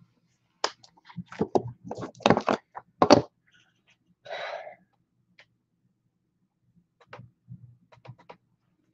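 Irregular clicks and knocks, densest in the first three seconds, with a short rustle about four and a half seconds in and a few faint ticks near the end.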